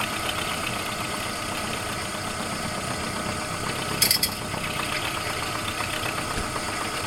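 Homemade milling machine running steadily with a constant mechanical hum, and a single sharp metallic click about four seconds in.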